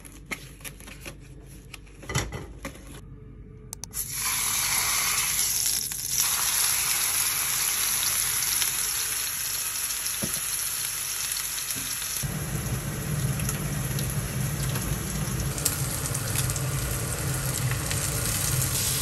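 Angus beef shoulder steak frying in oil in a nonstick pan, sizzling steadily from about four seconds in, after a few seconds of quieter scattered clicks. About twelve seconds in a low steady hum joins the sizzle.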